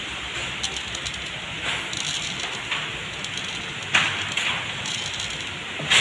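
Plastic bag of dry cat food crinkling as kibble is shaken out, pattering onto a wooden surface in a few short rustling bursts, the sharpest about two-thirds of the way in and at the end.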